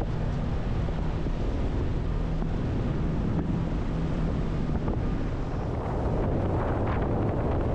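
Speedboat engine running with the boat under way, and wind buffeting the microphone in a steady low rumble.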